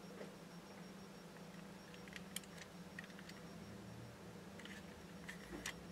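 Faint, scattered light clicks of a steel scalpel blade and fingertips against a plastic model kit while small stencil pieces are positioned, a few at a time with more near the end, over a low steady hum.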